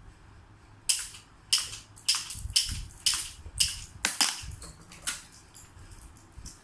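Toy BB pistol being fired repeatedly: about ten sharp cracks roughly half a second apart, followed by a few fainter clicks near the end.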